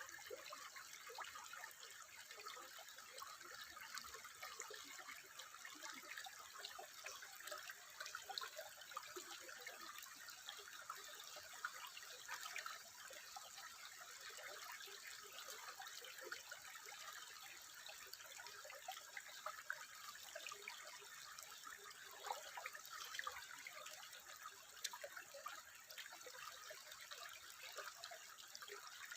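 Faint running water trickling steadily, with many small drips and splashes scattered through it.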